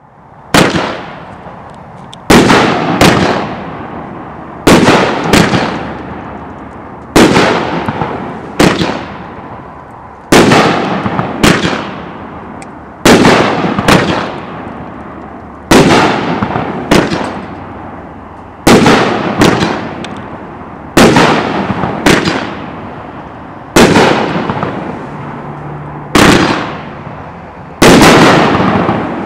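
Flashing Fireworks "Release The Beast" 12-shot, 500 g firework cake firing: a string of loud, sharp bangs, one every second or two and sometimes in quick pairs, each dying away over a second or so.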